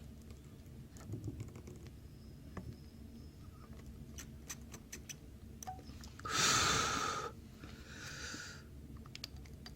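Small clicks and taps of hand work on a car-alarm circuit board, then two short hissing rushes of air: a loud one about six and a half seconds in, lasting about a second, and a fainter one just after.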